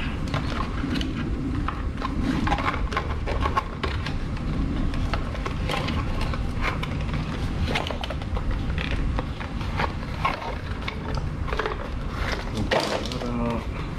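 Handling noise from a battery maintainer and its clamp cables being unpacked: irregular clicks, taps and rustling of plastic and cardboard, over a steady low rumble.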